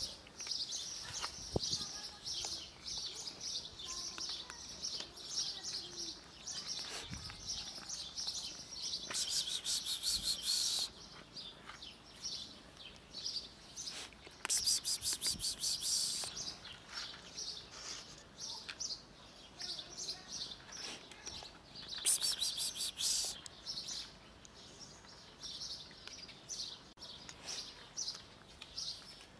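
Birds chirping and singing in many short high calls. Three times, a fast, very high trill runs for one to two seconds.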